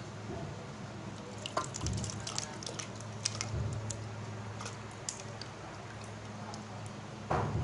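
Soft, wet boiled plum pulp poured from a steel bowl into a glass blender jar: small drips and wet plops with scattered light clicks, over a low steady hum.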